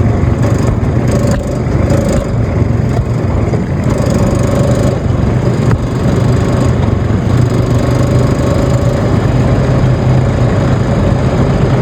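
ATV engine running steadily, with a constant low hum under a loud, rough rumbling noise.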